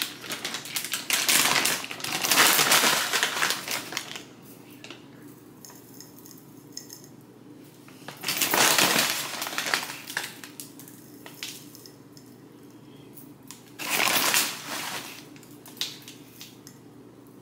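Honey almond granola poured from its bag into glass jars in three spells, the clusters rattling into the glass.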